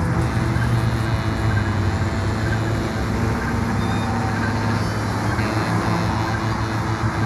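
Improvised ensemble music blended with a recorded street-traffic soundscape: a dense, unbroken wash of traffic-like noise with low sustained tones underneath.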